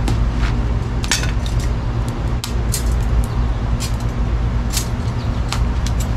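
Small wood fire of feather sticks crackling, with irregular sharp pops, over a steady low rumble.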